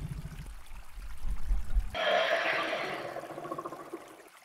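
Animation sound effects: a low rumble for about two seconds, then a sudden gush of pouring water that fades away.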